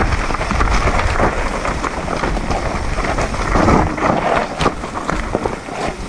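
Mountain e-bike riding down a forest trail: wind buffeting the microphone over the crunch and rattle of tyres on loose dirt and stones, with many sharp clicks and knocks.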